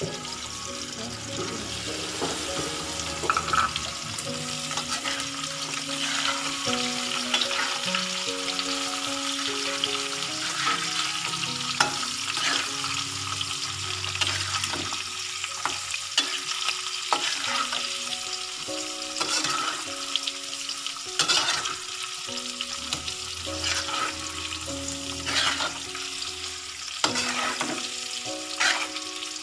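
Shallots and garlic sizzling in hot oil in a wok, stirred and tossed with a spatula that scrapes and knocks against the pan many times. A quiet tune plays underneath.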